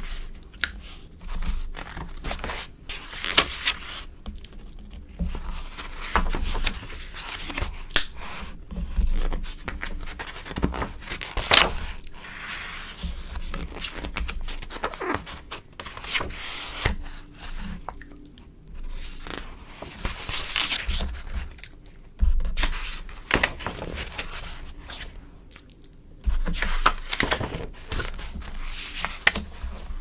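Glossy magazine pages being turned, bent and smoothed flat by hand close to the microphone: irregular crisp crackles, swishes and snaps of stiff coated paper.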